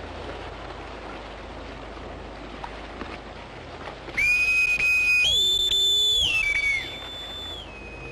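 A man whistling a loud, shrill signal with his fingers to his mouth, starting about four seconds in. It holds one high note, jumps to a higher one for about a second and a half, then cuts off.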